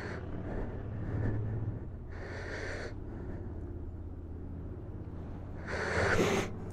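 A person breathing out sharply twice, close to the microphone: once about two seconds in and again near the end, over a steady low rumble.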